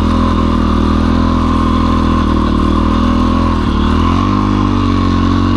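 Single-cylinder engine of a Yamaha XT dual-sport motorcycle running steadily under load as it pushes through deep snow; about four seconds in the engine note dips and then climbs again.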